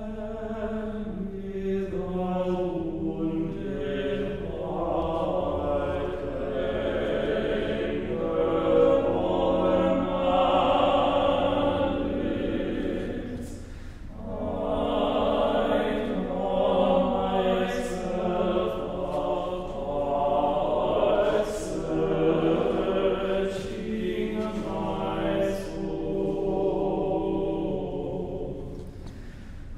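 Small choir of men's voices singing a slow sacred piece in several parts, holding long notes, with a brief pause for breath about halfway through.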